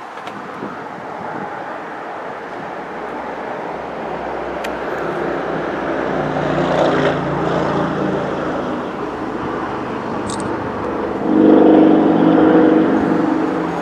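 Motor vehicles passing on a nearby road: an engine hum swells around the middle, and a louder vehicle comes by about eleven seconds in.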